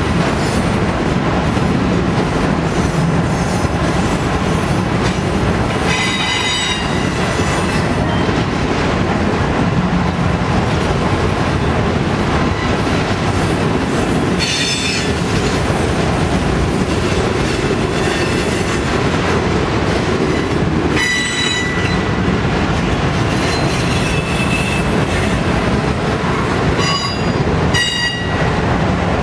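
Loaded autorack freight cars rolling past at close range: a steady rumble and clatter of wheels on rail. Four times the wheels squeal in high metallic tones, each squeal lasting about a second.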